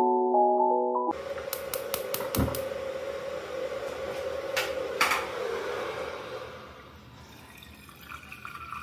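Glockenspiel-like intro music that cuts off about a second in. Then a pan of water on a lit gas burner with a steady hiss, a quick run of clicks, and two sharp knocks a couple of seconds later. The sound grows fainter near the end.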